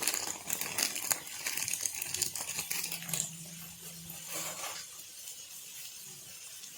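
Crinkling and light clicking of a plastic spice packet being handled to shake chaat masala into the mix, dense for about the first three seconds and then faint.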